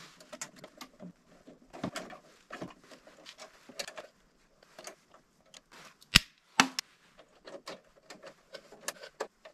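Scattered light clicks, taps and rustles of wires being handled and connected inside an electrical breaker panel, with two sharper metallic clicks just after six seconds in.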